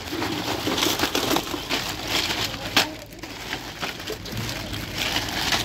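Plastic zip-lock bag of small toys crinkling and rustling as it is picked up and handled, with irregular sharp crackles and a louder crackle about halfway through.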